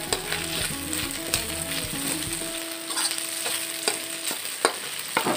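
Sliced chicken browning in hot oil in a pan: a steady sizzle, with scattered clicks of a utensil against the pan.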